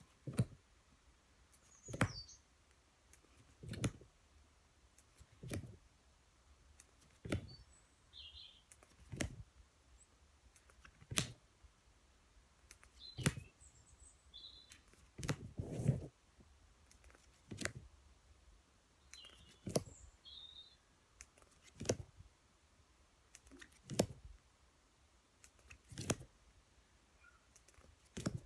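Paper flashcards being flipped one after another, a short sharp flick about every two seconds, with a fuller rustle near the middle.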